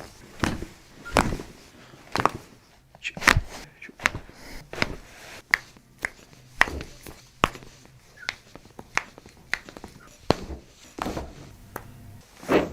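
A rapid series of sharp joint cracks and pops from chiropractic adjustments, about one or two a second at uneven intervals.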